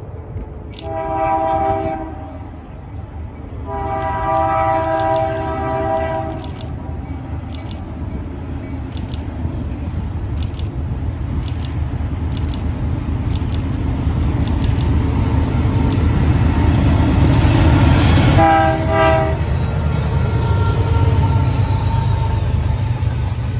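Freight train led by BC Rail diesel locomotive 4652 approaching and passing: its horn sounds a short blast about a second in, then a longer one of two to three seconds. Sharp clicks come every second or so while the rumble of the train grows louder, and a last short horn blast sounds as the locomotive passes, followed by the steady rumble of covered hopper cars rolling by.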